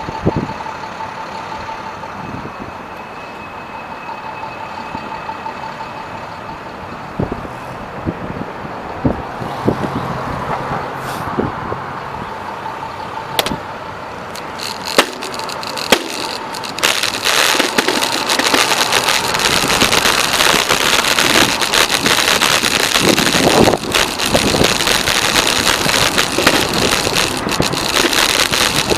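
City street traffic heard from a moving bicycle, with scattered clicks and knocks. About seventeen seconds in, the noise turns louder and rougher, full of rattling clicks.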